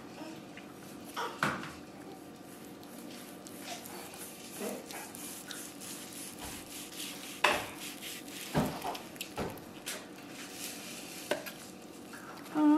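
Chef's knife slicing through a roasted prime rib on a wooden cutting board while a carving fork holds the meat: quiet cutting with a few light clinks and taps of metal on metal and on the board.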